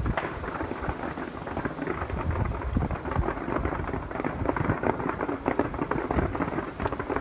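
Fireworks barrage: a dense, unbroken crackle of many small bursts over a low rumble.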